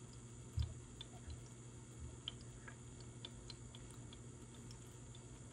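Ragdoll kitten eating a treat from cupped hands: faint, irregular small clicks of licking and chewing. A soft low thump comes about half a second in.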